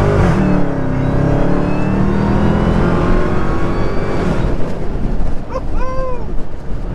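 Dodge Charger Hellcat's supercharged 6.2-litre V8 pulling hard under full throttle. The revs drop at a gearshift right at the start, then climb steadily through the next gear and ease off about four seconds in.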